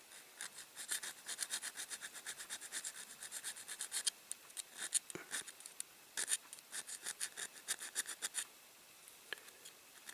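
A small hand file rasping on the die-cast zinc-alloy body of a toy van in quick, short strokes, several a second, filing out a casting line; the strokes stop about eight and a half seconds in.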